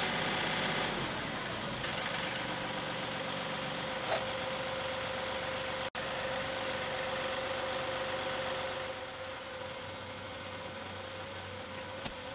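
John Deere 2038R compact tractor's three-cylinder diesel engine idling steadily.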